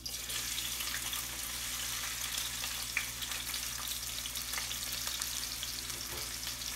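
Chopped onion dropped into hot oil with tempered mustard and cumin seeds in a stainless steel frying pan, starting to sizzle at once and frying steadily with small crackles and pops.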